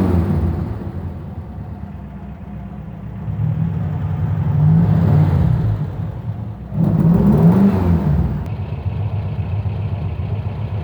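1976 Adamo GTL's air-cooled Volkswagen flat-four engine running loud and being revved. It drops back from a high rev at the start, is blipped up twice, about three and a half and seven seconds in, then settles to a steady idle.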